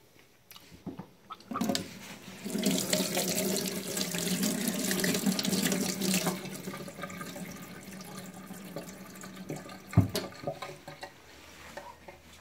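Tap water running onto a hand and into a stainless steel galley sink, starting about two seconds in and easing off after six seconds, with a steady low hum underneath. A single sharp knock about ten seconds in is the loudest sound.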